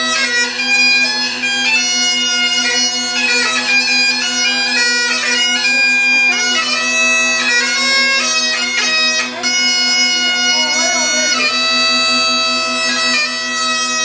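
Great Highland bagpipe playing a tune: the chanter's melody with quick grace notes over the steady drones.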